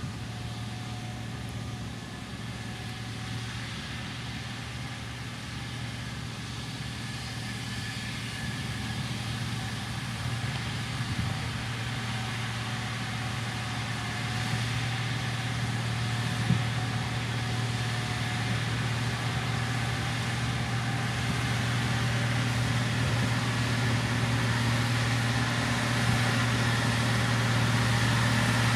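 Diesel engine of a heavy road-building machine running steadily, growing gradually louder as the machine draws nearer.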